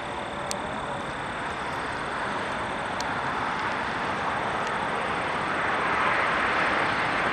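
Jet airliner approaching to land, its engine roar growing steadily louder, with a faint high whine.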